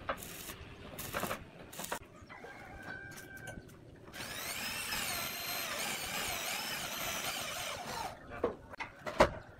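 Cordless drill fastening a roof tile to the steel roof battens. Its motor spins up with a rising whine about four seconds in and runs steadily for about four seconds. A few light clicks of tiles being handled come before it, and sharp knocks follow near the end.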